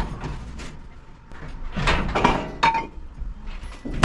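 Sheet-metal dryer cabinet parts being shifted and pulled open by hand: a few bouts of scraping and knocking, the busiest about two seconds in, with a short squeak.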